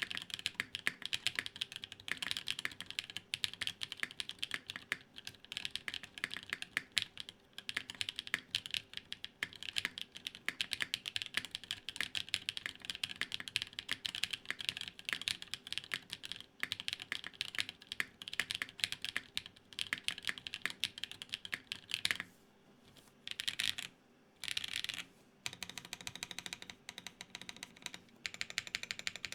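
Rapid typing on a custom mechanical keyboard, a Gok 7V built plateless with lubed Everglide Dark Jade tactile switches: a dense run of key clacks, broken by two brief pauses about two-thirds of the way through.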